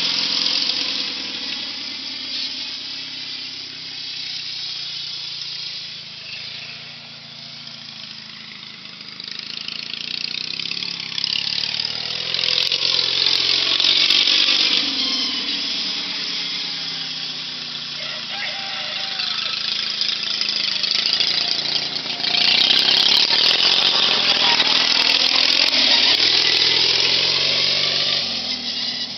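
Riding lawn mower's small engine running as the mower drives about, its pitch rising and falling with the throttle. It is loudest about halfway through and again through the last third.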